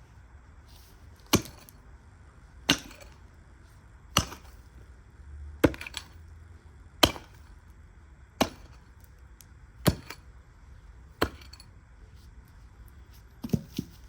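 A garden hand tool chopping, struck at an even pace about every second and a half: eight sharp single strikes, then a quick double strike near the end.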